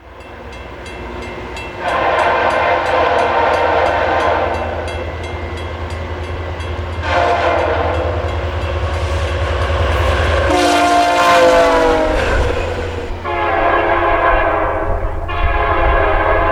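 Locomotive air horn sounding a series of long blasts over the steady rumble of a passing train. The pitch of one shorter blast, in the middle of the series, drops as the train goes by.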